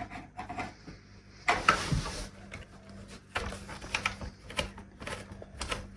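A screwdriver working at deep-set screws in the plastic case of a radio-cassette-CD player: scattered clicks and short scrapes of the metal bit against screw heads and plastic, with one longer scrape about a second and a half in.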